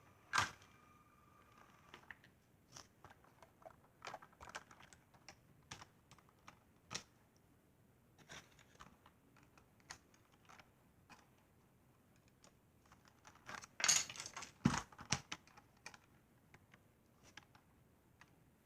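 Lego bricks and train models being handled: scattered light plastic clicks and taps, with a louder cluster of knocks about fourteen seconds in.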